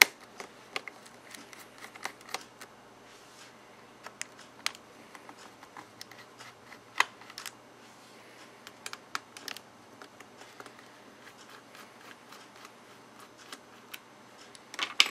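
Irregular light clicks and taps of a small screwdriver and screws against laptop plastic as the screws above a Dell Latitude D430's keyboard are taken out, with one sharper click about halfway through.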